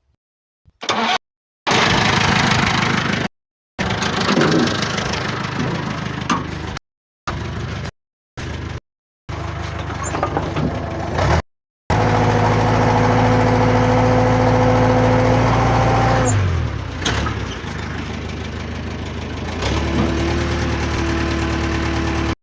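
Caterpillar 428 backhoe loader's diesel engine starting and running, cut by several abrupt silences in the first half. From about halfway it runs steadily, then its speed drops and it settles to a lower, steady idle.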